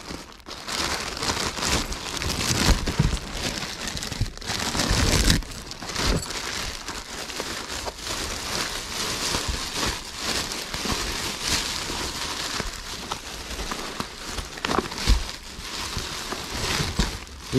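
Duct-taped plastic bag wrapping being pulled apart and cut open by hand: continuous crinkling and rustling of plastic, with a few sharper cracks and rips.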